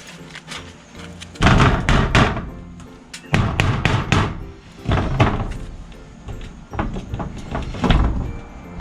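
Bursts of loud knocks, thuds and clatter from building work on a shed with corrugated metal siding, over background music.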